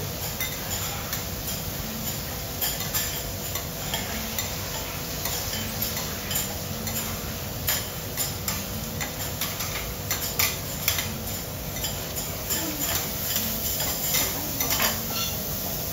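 Teppanyaki chef's metal spatulas tapping and scraping on the steel griddle in irregular clicks, over the sizzle of food frying on the hot plate.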